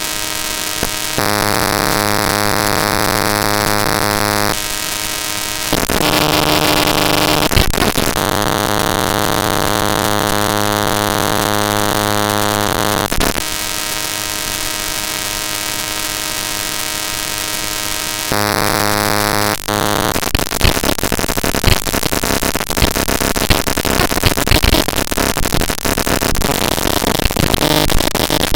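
Harsh digital noise from raw network-capture text (tshark output) played directly as audio samples: loud buzzing drones made of many steady tones, switching abruptly to a new drone every few seconds, then breaking up into dense crackling and clicking from about twenty seconds in.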